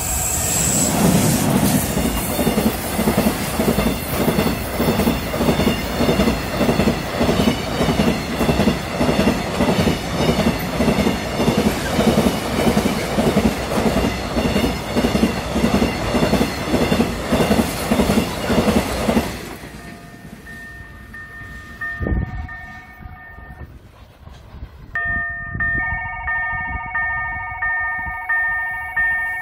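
Loaded cement freight train of bulk hopper wagons passing close, its wheels clacking over the rail joints in a steady rhythm, with a level-crossing warning bell ringing. About two-thirds of the way through the train sound cuts off and only the crossing warning bell is left, ringing in a steady repeating pattern, with a single low thump partway through.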